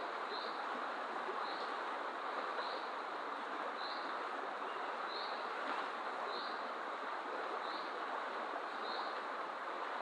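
Steady rush of a fast-flowing river, with a bird's short high call repeated about once a second over it.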